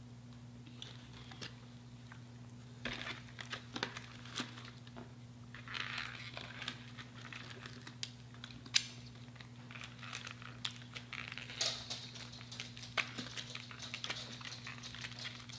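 Crispy Popeyes fried chicken being torn apart and eaten close to the microphone: scattered sharp crackles, crunches and crinkles, denser about six seconds in and again near the end. A steady low electrical hum runs underneath.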